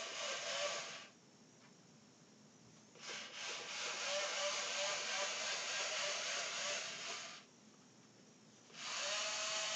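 K'Nex Command-A-Bot robot's small electric gear motors whirring in three bursts as it is driven by remote control. The first burst stops about a second in, a longer one runs for about four seconds, and another starts near the end.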